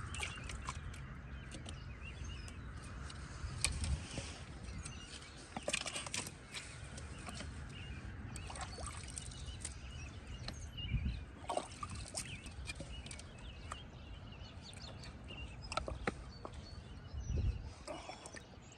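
Corrugated plastic drainage tile being handled and pushed into a plastic coupler in a muddy, wet trench: scattered scrapes, clicks and soft thuds, over a low steady rumble.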